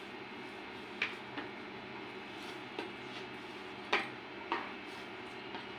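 Hand kneading and pressing a soft dough in an enamel bowl, giving a handful of light knocks and clicks against the bowl, the sharpest about a second in and about four seconds in, over a steady low hum.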